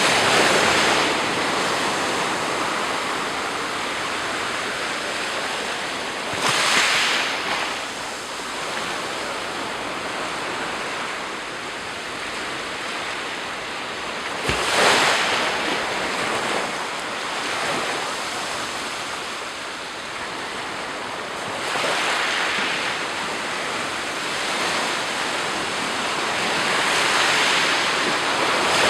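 Black Sea surf: a steady wash of water with a wave breaking on the shore about every seven seconds, five times in all.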